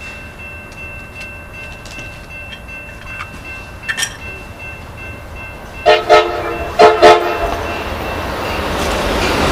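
Horn of an approaching Amtrak Pacific Surfliner train, sounded from its leading cab car: four short blasts in two close pairs about six to seven seconds in. The train's rumble grows toward the end as it nears the platform.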